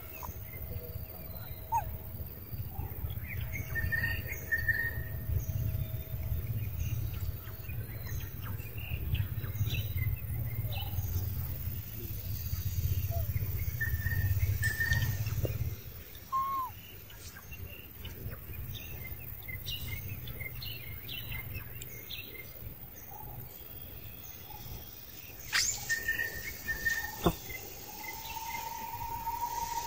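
Birds chirping and calling over forest ambience, with a low rumble through the first half. A few sharp clicks come near the end, and a steady high tone starts just before it ends.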